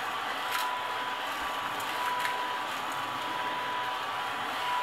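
Steady mechanical whirring noise with a faint high tone running through it, like a fan or motor. Two light taps, about half a second and two seconds in, from objects being handled on the table.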